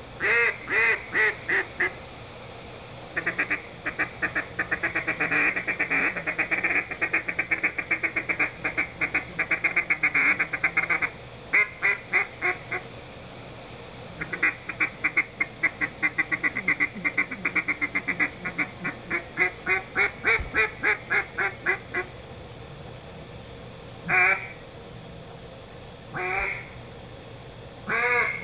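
Mouth-blown duck call: a few separate quacks, then two long runs of rapid short notes, a feeding-chuckle style chatter, and near the end two single calls a couple of seconds apart.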